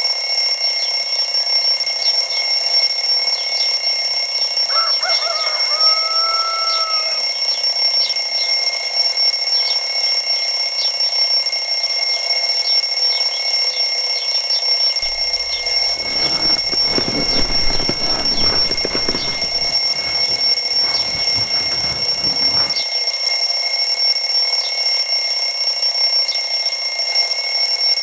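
Alarm clock ringing with a steady, unbroken high-pitched tone, over faint regular ticking. Past the middle, several seconds of low rustling and knocking sound under it.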